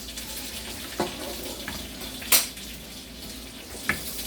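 Steady sizzle of pork cutlets deep-frying in oil, with three sharp clinks of dishes and utensils, the loudest about two and a half seconds in.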